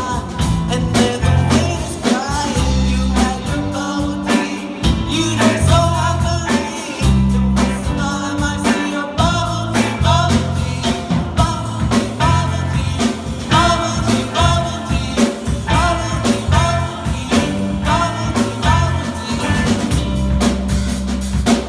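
Rock band playing live: drum kit, bass, guitar and piano, with a melodic lead line bending in pitch over a steady beat.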